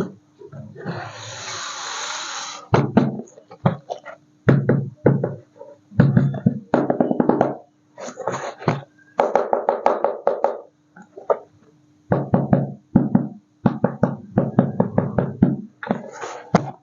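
Background music in short, stop-start phrases over a steady low tone, with a hissing burst about a second in.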